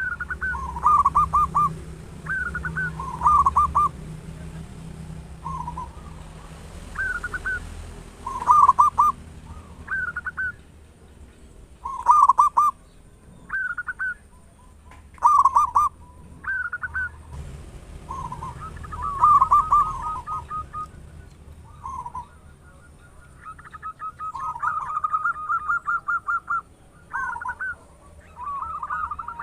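Zebra dove (perkutut) cooing, a string of short rolling coo phrases repeated every second or two, with a steady low hum underneath.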